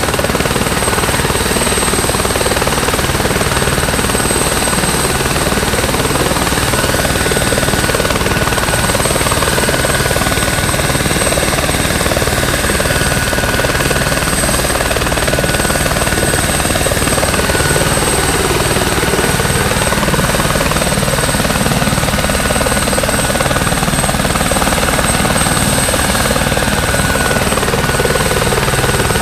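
Helicopter running on the ground with its main rotor turning: a steady high turbine whine over the even, rhythmic beat of the rotor blades.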